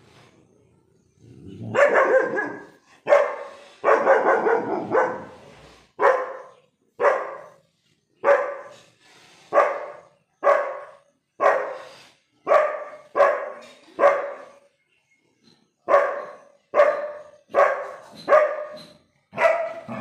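German Shepherd puppy alert-barking at a goat, guarding its house. It starts with a quick run of barks, then barks singly about once a second, with a short pause about three-quarters of the way through.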